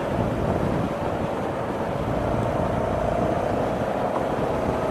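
Steady road noise inside a moving car: tyres and engine running at highway speed, with a faint constant hum.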